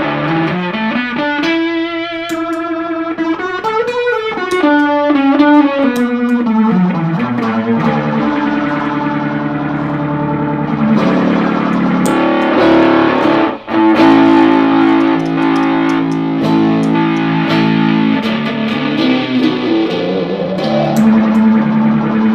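Electric guitar played through an Electro-Harmonix Super Ego+ synth pedal on a rotary setting with raised rate and depth, giving the notes a wavering modulation. Notes slide up and down in pitch for the first several seconds, then long held notes and chords ring on.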